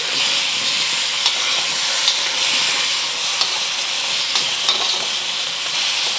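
Tomato wedges sizzling in a steel wok while a metal spatula tosses them: a steady frying hiss, with a few light clicks and scrapes of the spatula on the wok.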